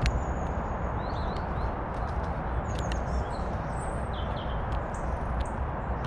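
Female blackbird pecking at peanuts and seed on a wooden bird table close to the microphone, a few sharp taps over a steady low rushing noise. Faint high chirps of small birds are heard in the background.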